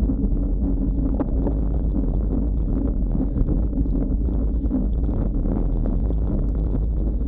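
Wind rumbling steadily on the microphone of a bike-mounted action camera on a road bike moving at about 17 mph.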